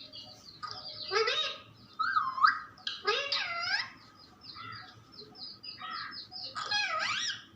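Pet parrot calling and chattering: a run of short, pitch-bending chirps and squawks with brief gaps between them.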